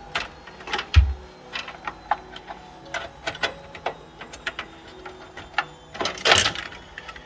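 Hands handling power cables and plastic connectors inside a desktop PC case: irregular clicks and rattles, a dull thump about a second in and a longer, louder clatter just after six seconds.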